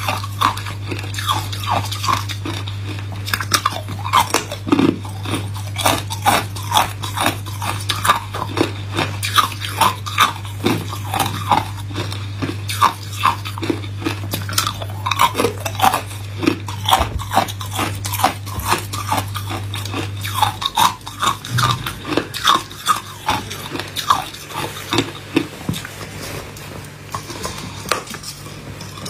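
Hard ice being bitten off a slab of joined ice cubes and chewed, with a quick run of sharp, crackling crunches, about one or two a second.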